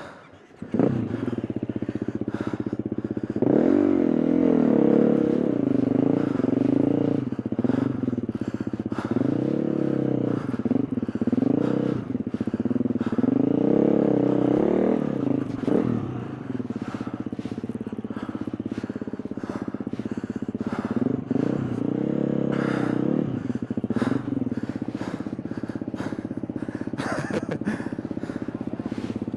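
KTM 350 EXC-F's single-cylinder four-stroke dirt bike engine comes in suddenly about a second in, then revs up and down over and over as the bike is ridden, with steadier running between the bursts of throttle.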